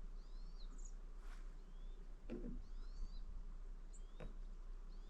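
Small birds chirping: a series of short, sliding high chirps, with a few faint knocks among them.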